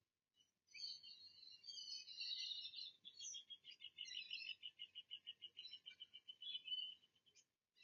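Wild birds chirping over one another, faint, then a fast, even trill that runs for several seconds and stops abruptly near the end.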